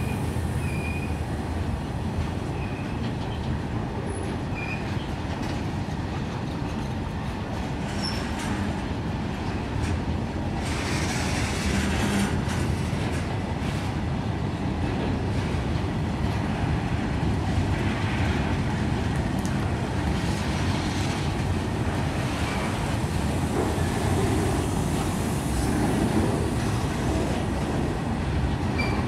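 Loaded BOXN wagons of a long freight train rolling steadily past, a continuous rumble and clatter of steel wheels on rail. Brief high wheel squeals come in the first few seconds, and the noise swells somewhat louder about ten seconds in.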